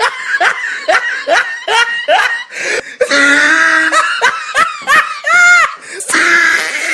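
A person laughing hard in quick repeated bursts, breaking into longer high-pitched drawn-out cries in the middle and again near the end.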